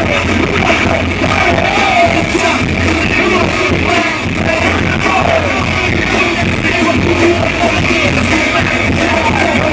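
Live rap-metal band heard loud from the crowd: electric guitar and drums under rapped, shouted vocals, in a rough, distorted amateur recording.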